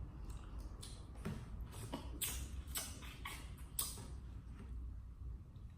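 Mouth sounds of eating: a run of wet clicks and lip smacks from chewing, thinning out near the end.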